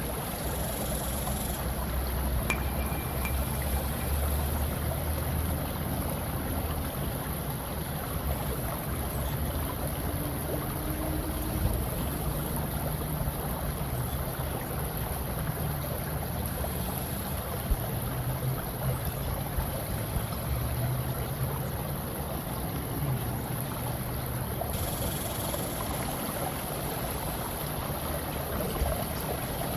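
Steady, continuous sound of flowing water, an even rushing noise with no distinct events.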